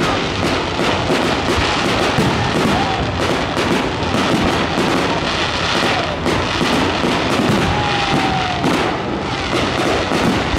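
Fireworks display: a dense, continuous run of shell bursts, bangs and crackling, with a brief falling whistle about eight seconds in.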